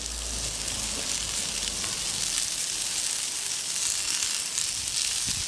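Sliced red onions sizzling steadily on a hot rectified-steel gas plancha at about 200 °C, as more rings are laid on the plate.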